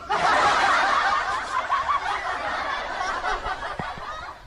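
Laugh-track sound effect: a group of people laughing and snickering together. It cuts in suddenly and fades away over about four seconds, a mocking laugh at a catch count of zero.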